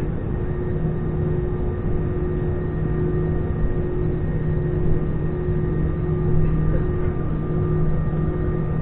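Cabin noise of an Airbus A320-214 taxiing, heard from a window seat over the wing, with its CFM56-5B engines at idle. It is a steady rumble with a few constant tones, an even engine hum with a higher whine above it, and no change in power.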